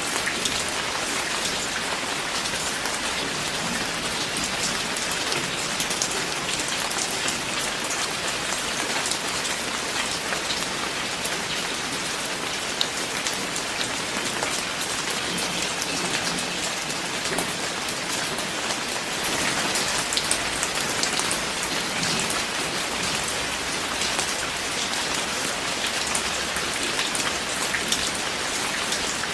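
Steady rain falling, a dense, even hiss of drops with many fine individual patters on a surface.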